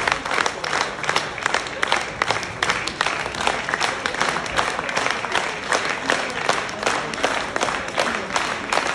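Large theatre audience applauding: dense, steady clapping of many hands throughout.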